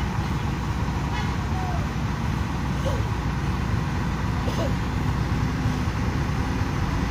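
Heavy truck diesel engine running steadily, a low even drone with no revving.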